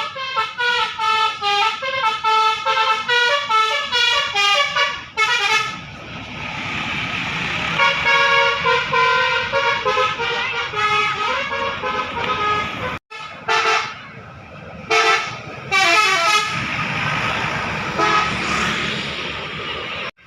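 Indonesian bus 'telolet' Basuri multi-tone air horn playing rapid jingles of short toots, the pitch jumping from note to note. The phrases are repeated with a rushing noise between them, and the sound cuts off abruptly about 13 seconds in before more horn phrases follow.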